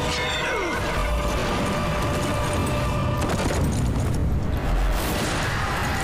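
Dramatic background music from a TV drama's battle score, with a deep boom a little before the end.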